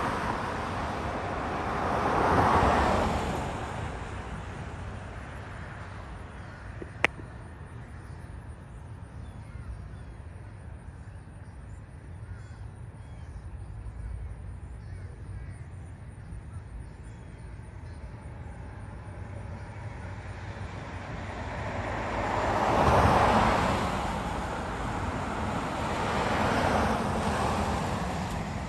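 Cars passing by on a road, two near the start and two near the end, each swelling and fading over a couple of seconds. Between them a steady distant roar from the twin-engine jetliner overhead, and a single sharp click about seven seconds in.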